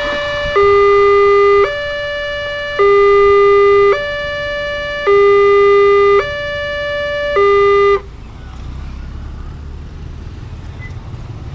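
Railway level crossing warning alarm sounding an electronic two-tone signal, a lower and a higher tone alternating about once a second, the lower one louder. It cuts off suddenly about eight seconds in as the crossing clears after the train has passed. Motorcycle engines running follow as traffic crosses.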